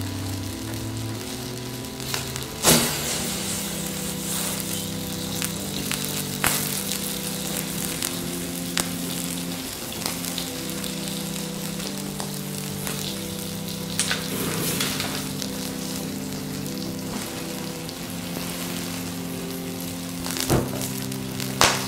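A burning plastic toy fire truck sizzling and crackling as its plastic melts in the flames, with a sharp pop every few seconds. Slow background music with long held notes plays underneath.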